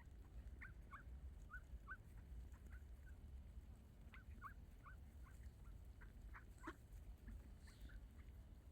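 Faint, scattered short bird calls, a dozen or so brief chirps, over a steady low rumble.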